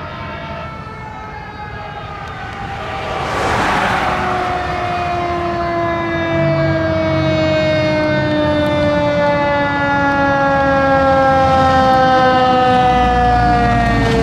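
Fire engine siren with a mechanical wail, its pitch falling slowly and steadily as it winds down, growing louder as the apparatus approaches. A brief rushing noise comes about three and a half seconds in, and a low engine rumble rises near the end as a truck passes close.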